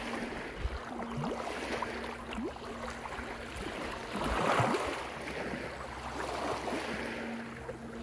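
Small sea waves lapping and washing over a rocky, seaweed-covered shoreline, with a bigger wave breaking and rushing in among the rocks about four seconds in.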